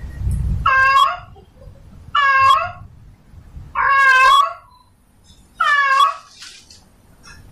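Tomcat in heat calling for a female: four long meows about a second and a half apart, each bending up and down in pitch.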